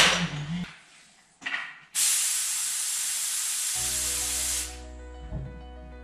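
A sharp blast of compressed air from an air compressor hissing into a tubeless bicycle tire for about three seconds, the fast air used to seat the tire's beads on the rim. A knock comes right at the start, and a steady low hum runs before and after the blast.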